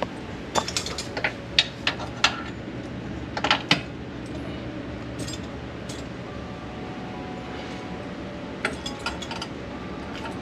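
A steel parking-brake cable being fed by hand along its route under a Honda Civic, making scattered bursts of light metallic clicks and clinks. The clicks come in clusters about a second in, around the middle and again near the end.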